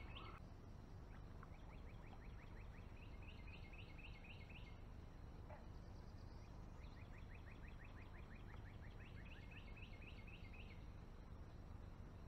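A bird singing faintly in the distance: a few phrases of quick, evenly repeated high notes, each string lasting one to four seconds, over a faint steady low hum.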